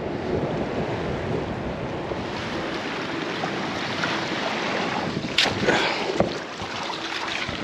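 Strong wind buffeting the microphone in a steady rumble, with a few sharp knocks a little past halfway.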